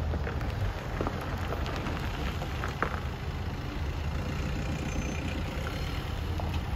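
A car engine running steadily at low revs as the car moves slowly, with a few faint light ticks.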